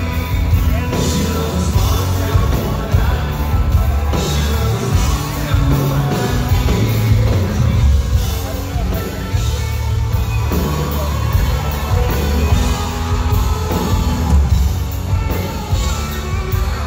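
A live country band plays loud, with electric guitars, bass and drums, and a man sings lead over it. It is heard from the audience in a large hall.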